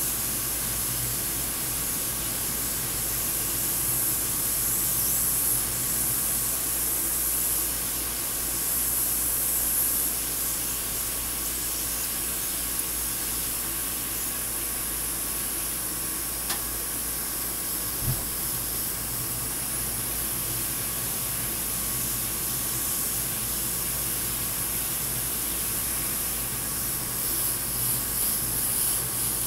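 Double-action, suction-feed airbrush spraying paint: a steady hiss of air, with a low steady hum beneath it.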